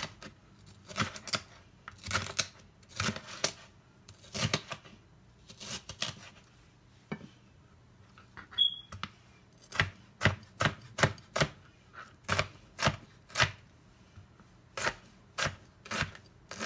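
Kitchen knife slicing and dicing a green bell pepper on a plastic cutting board: a series of sharp knocks as the blade hits the board, spaced out at first, then quicker, about two or three a second, from about ten seconds in.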